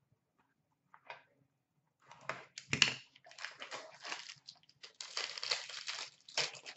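Plastic wrapping crinkling and tearing as a sealed hockey card box and its contents are opened by hand, starting about two seconds in after a single light click.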